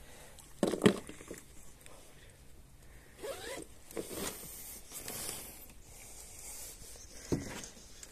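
Spinning fishing reel in short, zipper-like rasping bursts as a hooked piapara is fought on a bent rod; the loudest burst comes about a second in, with several more spread through.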